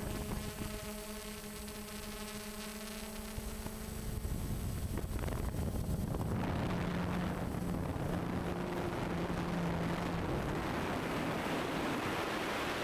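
DJI Phantom FC40 quadcopter's motors and propellers humming steadily, picked up by the drone's own onboard camera, with wind noise on the microphone that grows louder about four seconds in.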